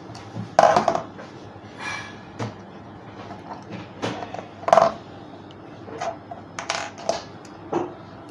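Screwdriver working the small screws out of an RO solenoid valve's metal body: scattered short clicks and scrapes of metal on metal, with two louder knocks, about half a second in and just before five seconds in.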